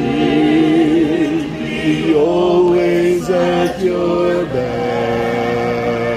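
A group of men and women singing together unaccompanied: a slow song of long held notes that waver, the tune stepping up in pitch a few times.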